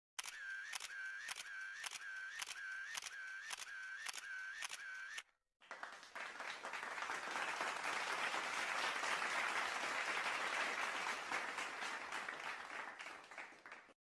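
Added sound effects: a run of about a dozen camera-shutter clicks, a little over two a second, for about five seconds. After a short gap comes applause that fades out near the end.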